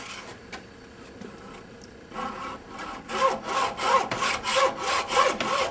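Hacksaw cutting through a heavy battery cable clamped in a vise. A few light clicks come first; about two seconds in the sawing starts, with steady back-and-forth strokes at about two a second.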